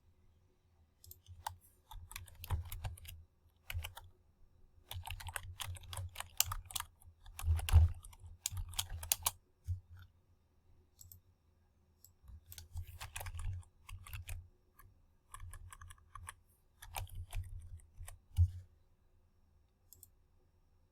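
Typing on a computer keyboard in irregular bursts of key clicks, with short pauses between them.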